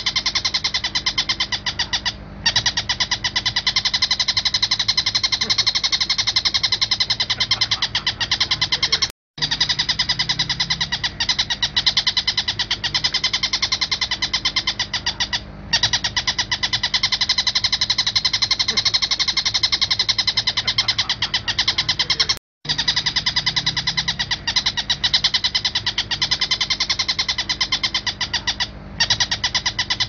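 Oriental dollarbird (tengkek buto) calling in a fast, unbroken run of repeated notes. The run stops for short breaks about every six or seven seconds.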